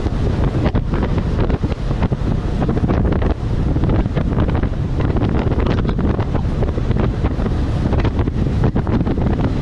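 Strong wind buffeting the microphone on a Buster Magnum aluminium boat, with the rush and slap of choppy waves against the hull.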